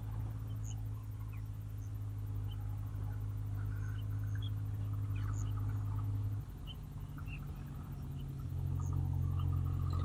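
Scattered short, high chirps of small birds over a steady low hum, which drops briefly and then returns at a slightly different pitch about six and a half seconds in.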